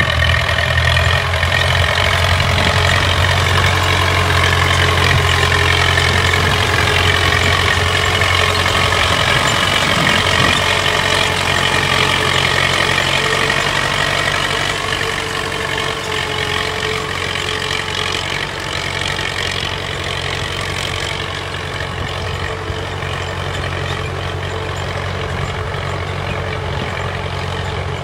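Old tractor's diesel engine running steadily under load while pulling a disc harrow; it is a little quieter in the second half as the tractor moves away.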